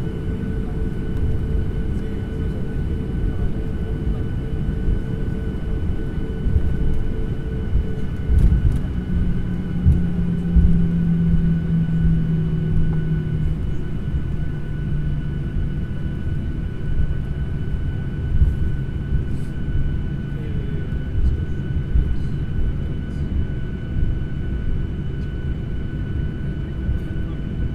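Airliner cabin noise: a loud, steady low rumble of the engines and airflow with thin constant whine tones over it. About eight seconds in a deeper hum comes in and settles a little lower in pitch around fourteen seconds.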